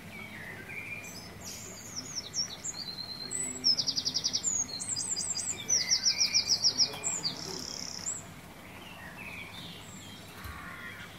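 A songbird singing: a run of high chirps and slurred whistles with two fast, rapid trills in the middle, dying away about two-thirds of the way through, over a faint steady background hiss.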